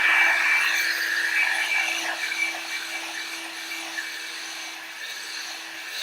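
One-step hot-air brush hair dryer running steadily on its low setting: a motor hum with rushing air, growing gradually quieter.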